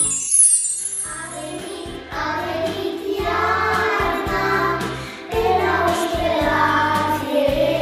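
A glittering chime slides down in pitch at the start. From about two seconds in, young children sing a Romanian Christmas carol (colind) together over a backing track with a steady bass beat.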